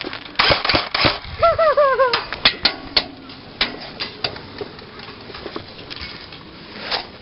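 Sharp snaps and knocks of an airsoft firefight, from semi-auto airsoft rifle shots and BBs striking the bunker. They come thick in the first three seconds and more sparsely after. About a second and a half in, a short call falls in pitch three times.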